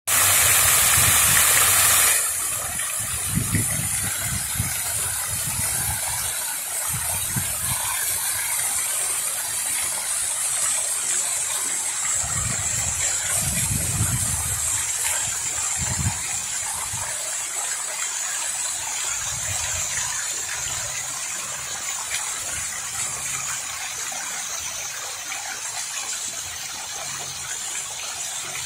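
Water from a tiered outdoor fountain falling from its basin into the pool below, a steady rushing splash that is louder for the first two seconds. Occasional low rumbles come and go underneath.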